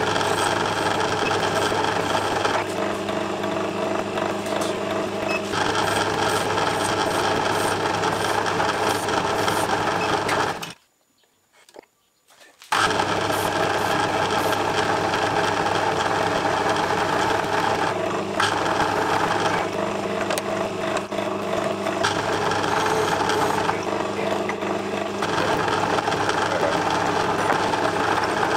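Metal lathe running steadily with an even motor hum while the end of a small brass part held in a collet is faced and chamfered. The sound cuts out for about two seconds near the middle, then resumes.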